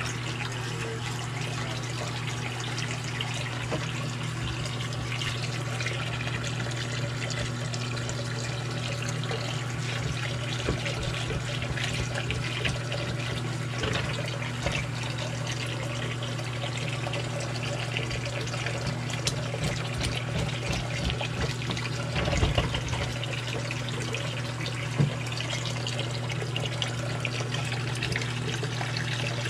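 Bathroom sink faucet running steadily, its stream splashing into the basin and down the drain, over a steady low hum. A couple of brief knocks come about three-quarters of the way through.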